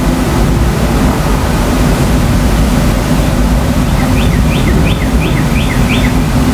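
Continuous low rumble of distant thunder from an approaching supercell thunderstorm, steady with no single clap standing out. About four seconds in, a bird gives a quick run of about six short high chirps.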